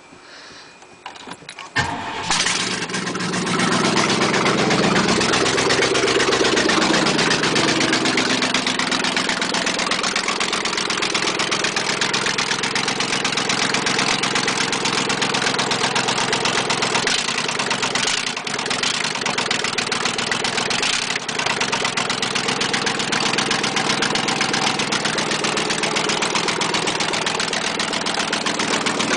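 1996 Chevy Silverado 2500's 5.7-litre (350) Vortec V8 starts up about two seconds in. Its speed swings up and down for a few seconds, then it settles into a steady idle with a rapid, even knock: a bad rod knock.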